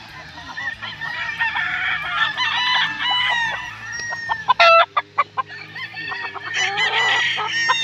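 Many tethered gamecocks crowing and clucking, their calls overlapping, with a louder burst of calls close by about halfway through and another near the end.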